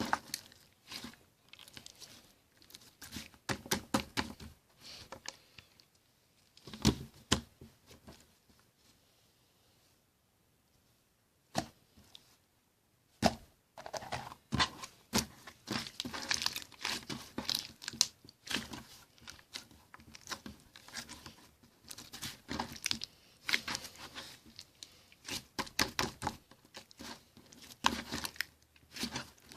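Slime being squished, pressed and stretched by hand, giving rapid sticky crackles, clicks and pops, with a pause of a few seconds about a third of the way through.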